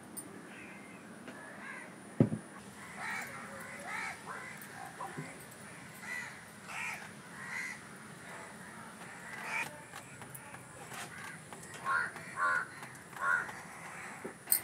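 Crows cawing again and again in short calls, with three louder caws near the end. A single sharp thump about two seconds in.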